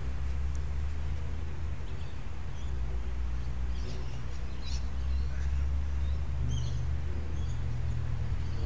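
Scattered short bird chirps over a steady low rumble.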